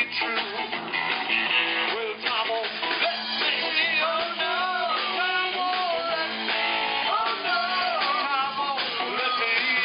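Live rock band playing an amplified song: electric guitar and drums, with a wavering lead melody line over them.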